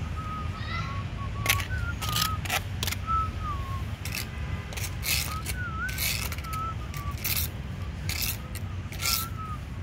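Small bird giving short, repeated warbling whistles over a steady low rumble, with sharp crackles scattered throughout.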